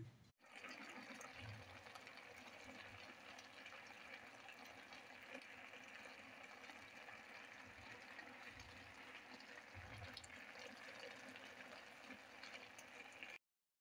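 Faint steady sizzling of cauliflower and potatoes cooking in a pan, with a few soft low bumps; it cuts off suddenly near the end.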